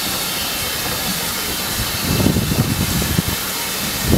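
Steady hiss of steam from a steam locomotive hauling a train slowly along a platform, with an uneven low rumble joining about halfway through.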